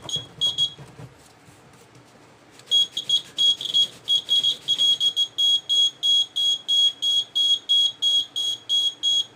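Piezo buzzer of a homemade seismograph sounding in short high-pitched beeps, each one an alarm as the hanging pendulum touches its contact while the board is shaken. Two beeps at the start, then from about three seconds in a fast string of beeps, about four a second.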